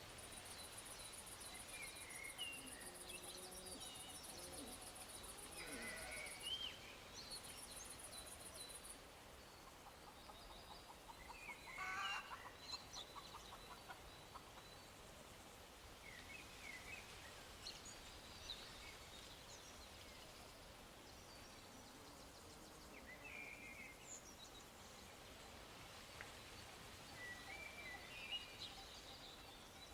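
Faint outdoor ambience: scattered bird chirps and calls, one louder call about twelve seconds in, with a high, rapid insect trill through the first nine seconds, broken once briefly.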